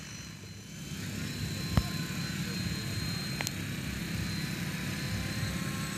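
Radio-controlled model helicopter in flight: rotor and motor running with a steady hum and a thin high whine, growing louder over the first second. A sharp click about two seconds in.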